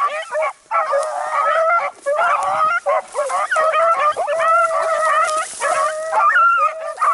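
A pack of beagles baying together on a rabbit's scent, several voices overlapping in long bawls with short breaks. The baying is the sign that the hounds are running a rabbit.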